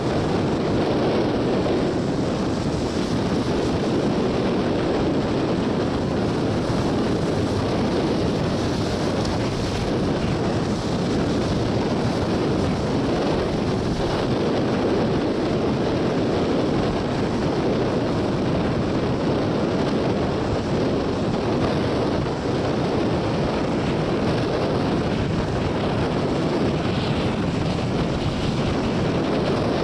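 Storm wind buffeting the microphone in a steady, even rush, mixed with heavy surf breaking against the rocks of a jetty.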